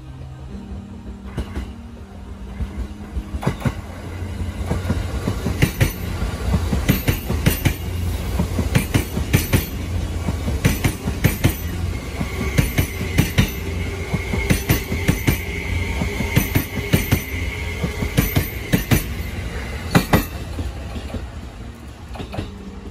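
JR East E261 series Saphir Odoriko limited express passing through a station without stopping. A rumble builds as it nears, then its wheels click sharply and repeatedly over the rail joints as the cars go by. A steady high whine runs through the middle of the pass.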